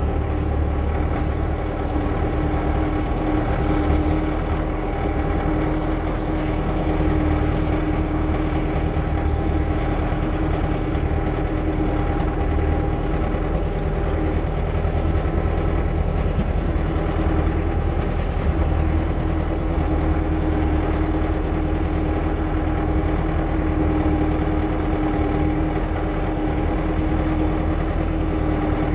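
An engine or motor running steadily at a constant speed, with an unchanging hum.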